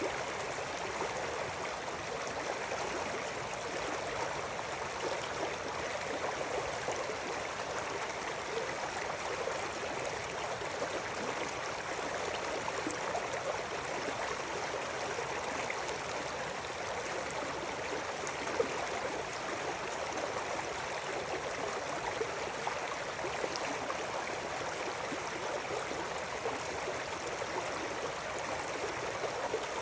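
River water flowing and babbling steadily over stones.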